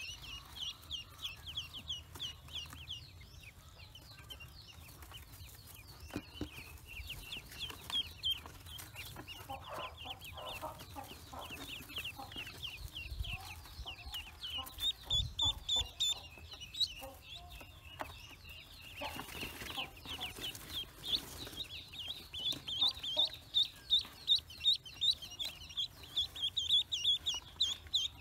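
Newly hatched ducklings peeping: a rapid chorus of short, high, falling peeps that grows louder near the end.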